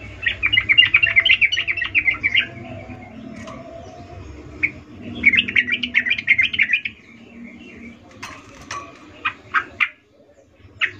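Yellow-vented bulbul (trucukan) singing: two bursts of rapid chattering song, each about two seconds long, a few seconds apart, then a handful of short separate notes in the last few seconds.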